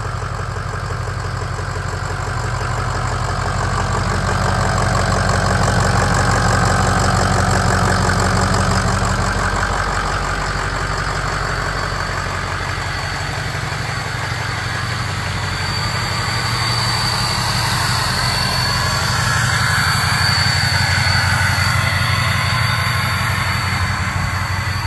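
A 2005 Ford F-250's emissions-deleted 6.0 L Power Stroke V8 turbodiesel idling steadily through a 4-inch exhaust. It grows louder and softer as the microphone moves around the truck. A faint high whine joins about two-thirds of the way through.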